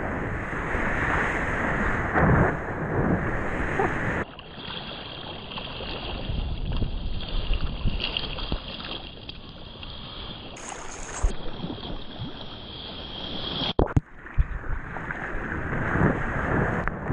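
Sea water rushing and splashing against a surfboard and the surfer's paddling arms, heard through a GoPro's waterproof housing, with wind on the microphone. For most of the middle the sound turns duller and muffled, then opens up again near the end.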